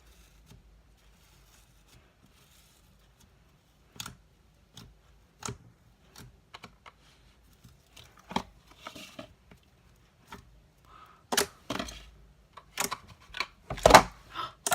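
Slime being squeezed and poked by hand for ASMR: after a few quiet seconds, scattered sticky clicks and crackles that come thicker and louder toward the end. Near the end there is a louder knock of something falling over.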